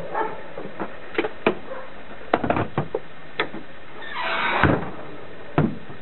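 An Audi sedan's trunk lid is swung down and slammed shut about three-quarters of the way in, with a second thud a second later; before that come several light clicks and knocks.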